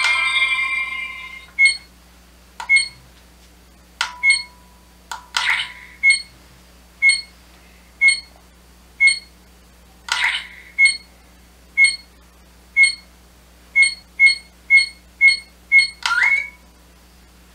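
Bandai Proplica Dragon Ball Dragon Radar replica's electronic game sounds. A short beeping start jingle is followed by sharp electronic beeps about once a second, broken by a few longer electronic sound effects as dragon balls are acquired. The beeps quicken to about two a second near the end as the game speeds up.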